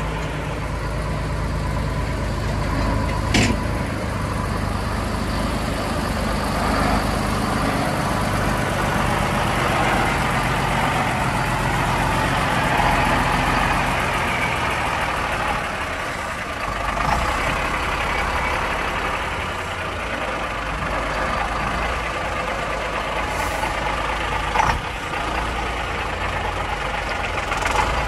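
The Atkinson Borderer lorry's Rolls-Royce 280 six-cylinder diesel running at low revs as the lorry slowly reverses with a low-loader trailer. Two short, sharp sounds stand out, one about three seconds in and one near the end.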